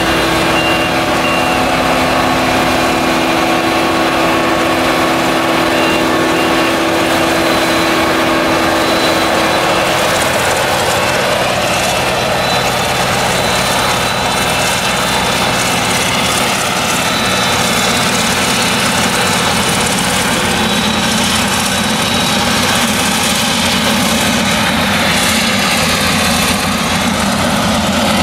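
Claas Jaguar 970 forage harvester's MAN V8 engine running under load while it chops maize, a loud steady mechanical noise with a held whine. The whine fades about ten seconds in as the harvester moves away, leaving a broader rushing machine noise.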